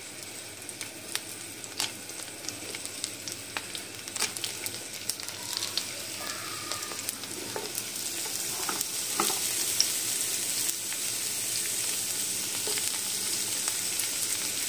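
Sliced onion rings sizzling and crackling in hot oil in a frying pan as more rings are laid in; the sizzle grows steadily louder through the first part and then holds.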